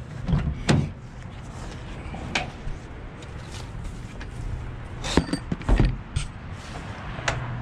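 Handling noises as a cardboard box of head studs is lifted out of a car's interior and set down on the roof: scattered clicks and knocks, with a dull thump about two-thirds of the way through as the box lands.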